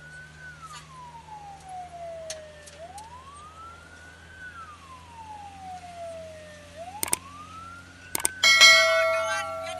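Emergency vehicle siren wailing slowly, each rise and fall taking about four seconds, heard from inside the cab over the hum of the engine. Near the end, a couple of sharp knocks come just before a sudden loud, steady blaring tone cuts in.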